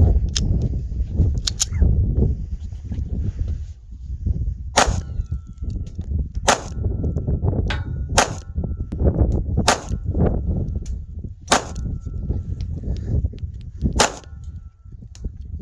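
Compact semi-automatic pistol fired six times, single shots spaced about one and a half to two and a half seconds apart, each a sharp crack, starting about five seconds in.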